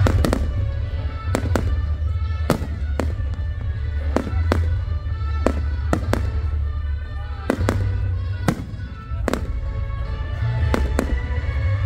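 Fireworks display: aerial shells and rockets bursting in a rapid, irregular run of sharp bangs, one or two a second, over music playing.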